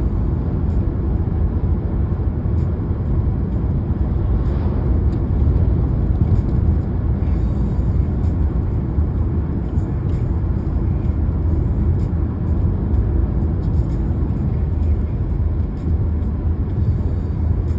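Car driving on the road: a steady, low rumble of tyres and engine.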